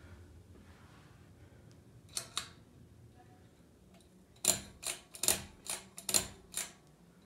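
Clicking of a ceiling fan's pull-chain switch being pulled: two clicks about two seconds in, then a quick run of about seven clicks about four and a half seconds in, as the fan is stepped through its speed settings.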